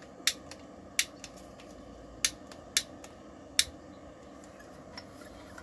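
Long-nosed utility lighter clicking its spark igniter, five sharp clicks with a few fainter ones over about three and a half seconds, while lighting a blue gas-cartridge camping stove.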